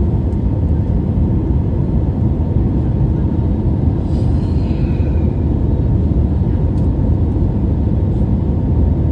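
Steady cabin roar inside an Airbus A321 from a window seat beside the engine: jet engine and airflow noise, deep and unbroken, during the descent on final approach.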